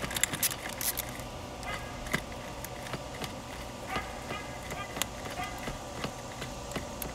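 Socket ratchet clicking as it tightens the nut on a car battery's positive terminal. A quick run of clicks comes in the first second, then single clicks here and there.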